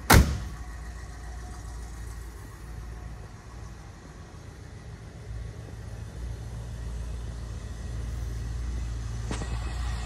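A 1984 Oldsmobile Hurst/Olds door slammed shut with a single sharp bang, followed by a steady low rumble.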